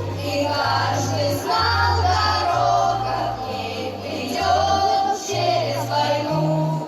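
A song: voices singing over an accompaniment whose bass changes note about every second.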